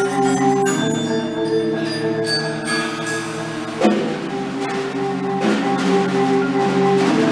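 Percussion ensemble playing held chords on marimbas and vibraphones, with bell-like high notes. The chord changes about a second in, and there is a single sharp hit about four seconds in.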